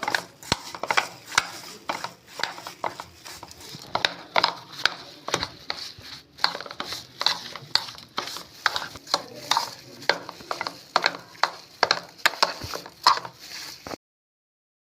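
Repeated sharp, irregular clinks and knocks of a kitchen utensil working food, about two or three a second. They cut off abruptly near the end.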